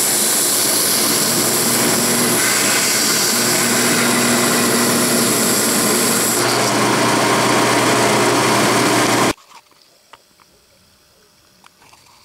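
Stationary sander running with the sawn end of an aluminum round bar pressed against the abrasive to square it: a steady motor hum under a loud, hissing grind. It cuts off abruptly about nine seconds in, leaving only a few faint clicks.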